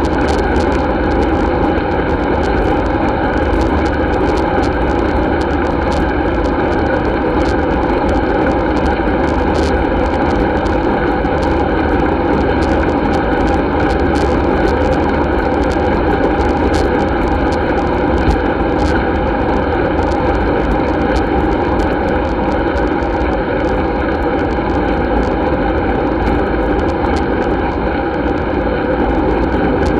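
Steady wind rush and tyre-on-asphalt rumble picked up by a handlebar-mounted camera on a moving road bike, with occasional faint ticks.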